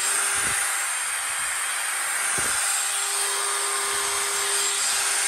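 DeWalt DCD708 20V brushless compact drill/driver running unloaded with an empty chuck, a steady whir. Two light knocks come about half a second and two and a half seconds in.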